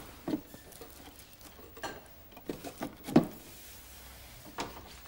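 Objects being handled: about six scattered knocks and clunks, the loudest about three seconds in.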